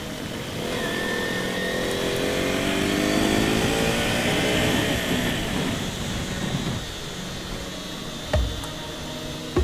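Motorcycle engine revving up over a few seconds and then easing off, with two short thumps near the end.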